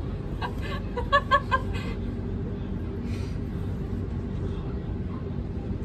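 Steady low rumble inside a moving public-transport cabin, with a short laugh about half a second in.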